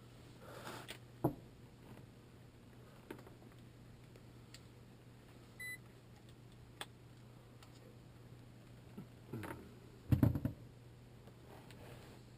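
Scattered faint clicks and knocks of handling over a steady low hum, with one short electronic beep about five and a half seconds in and a brief cluster of louder knocks near the end.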